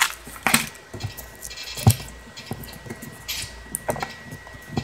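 Foil lid being peeled back from a plastic yogurt cup, with scattered clicks, taps and a brief crinkle from handling the cup and lid.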